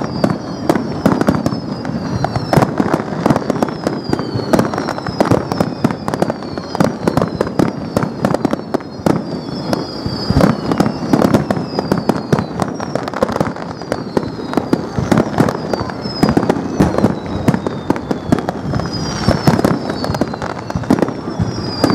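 Aerial fireworks going off in a dense, continuous barrage, bangs and crackles of bursting shells following one another without a break. High whistles falling in pitch repeat about once a second over the bangs.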